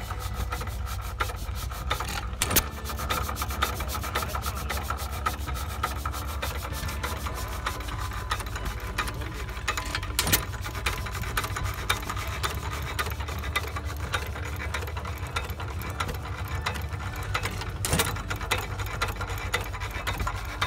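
Antique hopper-cooled hit-and-miss stationary gas engine running with its flywheels turning: a fast, even mechanical clatter over a low hum, with a louder bang three times, about eight seconds apart.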